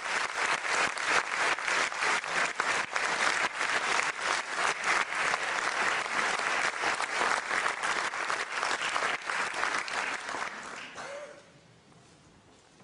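Concert audience applauding, a dense steady clapping that dies away about eleven seconds in.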